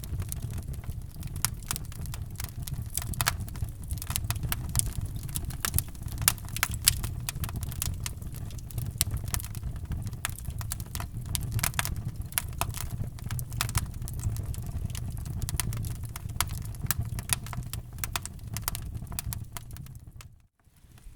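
Wood fire in a fireplace crackling, with frequent irregular sharp pops and snaps over a steady low rumble of the flames. The sound cuts out for a moment near the end, then comes back.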